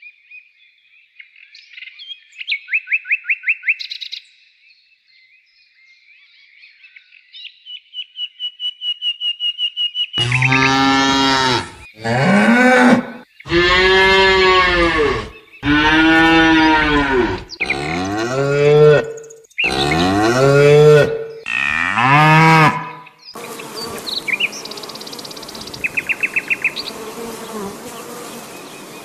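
A calf mooing about seven times in a row, each moo rising then falling in pitch; this is the loudest part. Before it come faint chirps and trills, and after it a steady buzzing of honeybees with a short trill.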